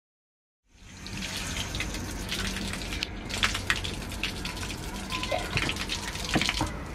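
Water running from a low outdoor tap and splashing onto wet pavement, starting suddenly under a second in, with short sharp splashes and ticks as a Pembroke Welsh Corgi laps at the stream.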